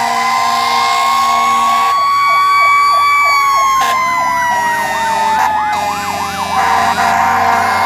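Fire engine sirens sounding together as the trucks pass. One slow wail rises and then falls, while another siren runs a fast yelp about three times a second.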